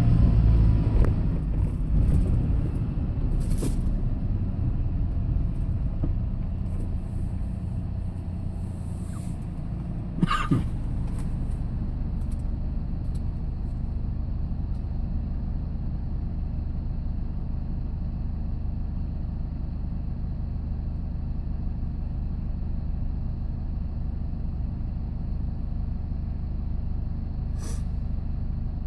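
Vehicle engine and road noise from inside the cab: a steady low rumble that eases off over the first few seconds and then holds even, with a few brief clicks or knocks.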